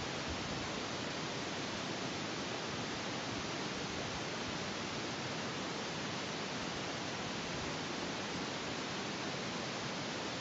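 Strong wind blowing, heard as a steady rushing noise with an uneven low rumble of wind on the microphone.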